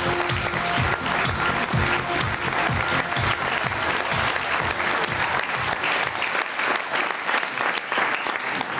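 Studio audience applauding a guest's entrance, with a short music jingle over the first couple of seconds. The clapping thins out towards the end.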